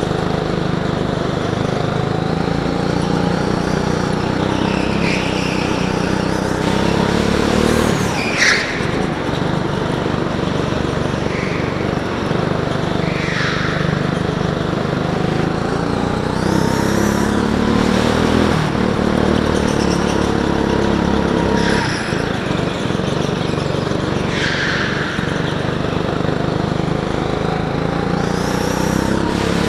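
Go-kart engine heard from on board, its pitch rising and falling as the driver accelerates and lifts through the corners. The tyres squeal briefly on the smooth indoor track surface several times, loudest about eight seconds in.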